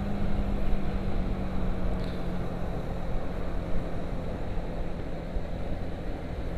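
Honda CBR150R's single-cylinder four-stroke engine running at a steady cruise, its pitch sagging slightly as the bike eases off, over a rush of wind and road noise.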